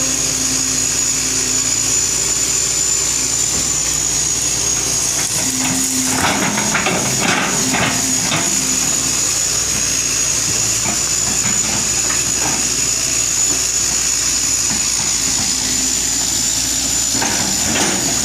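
Old Hitachi excavator running, its engine going steadily under a constant high whine. Bursts of metallic clanking come about six seconds in and again near the end.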